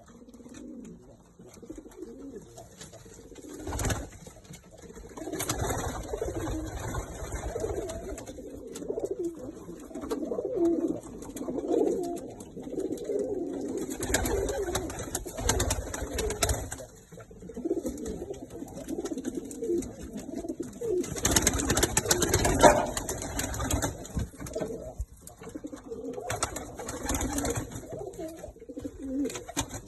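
Domestic pigeons cooing continuously, with several louder bursts of noise mixed in.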